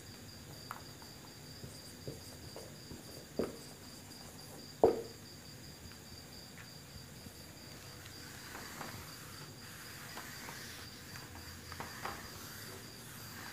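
A cricket chirping steadily in the background, with a few short knocks, the loudest about five seconds in. From about eight seconds on, the soft rubbing of a duster wiping a whiteboard.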